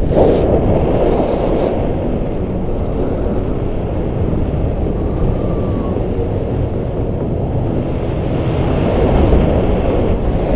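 Wind rushing and buffeting over the microphone of a camera carried on a paraglider in flight: a loud, steady, rough rumble.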